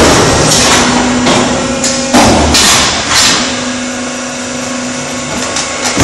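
Concrete block making machine between compaction cycles: a steady hum with a string of metal clanks and rattles in the first half as its parts move, then the hum alone.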